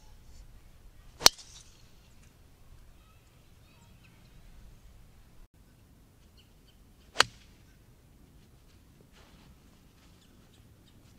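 Two golf shots about six seconds apart: a driver striking the ball off the tee about a second in, then a club striking the ball from the fairway, each a single sharp crack.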